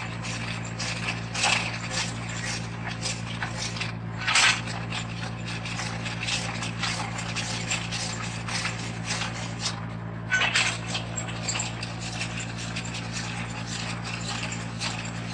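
Tractor-driven post hole auger boring into hard, powder-dry soil: a steady engine drone under the gritty scraping and clatter of the bit churning the dirt. Three louder clattering knocks come through, the loudest about four and a half seconds in.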